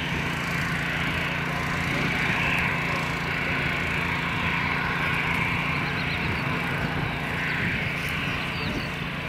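Airbus A320-214's CFM56-5B turbofan engines running at low taxi power as the airliner turns to line up for takeoff: a steady jet whine and rush with a low hum beneath.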